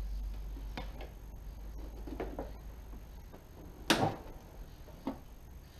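A few scattered clicks and knocks of a wrench being handled and fitted onto a scooter mirror's hex lock nut, the loudest knock about four seconds in.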